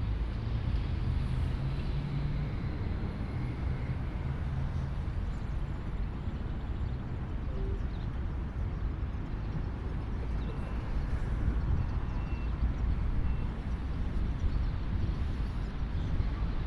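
Steady outdoor rumble and hiss of a field recording, with a low engine hum that rises slightly in the first seconds and then fades out. A few faint short high chirps come through around the middle.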